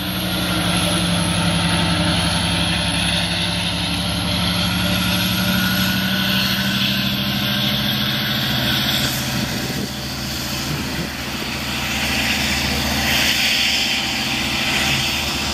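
LIRR DM30AC diesel locomotive's EMD 710 prime mover working under power as it pushes the train out of the station: a steady, loud engine drone with rumbling wheel and track noise as the train pulls away.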